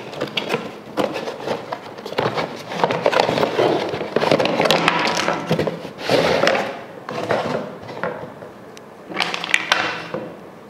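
Cardboard box being opened and emptied: flaps rustling and scraping, with hard plastic parts knocking and clattering against the box and a wooden tabletop as they are taken out and set down.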